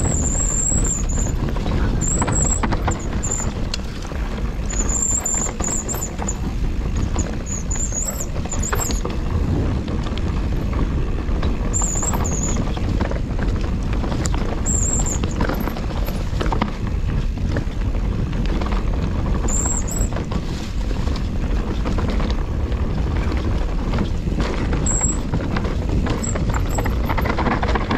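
Mountain bike ridden fast along a singletrack trail: a steady low rumble of tyres and wind on the microphone, with short high-pitched brake squeals every few seconds.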